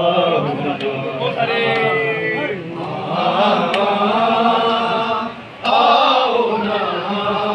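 Men's voices chanting a noha, a Shia Muharram lament, several voices together in long sung phrases with a short break about five and a half seconds in.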